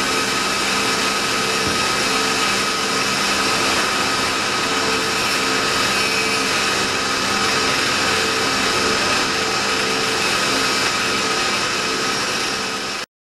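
Nakamura-Tome NTJ-100 CNC lathe machining a metal ball, its rotating tool drilling holes: a steady machine whine with several constant tones over a hiss. It cuts off suddenly near the end.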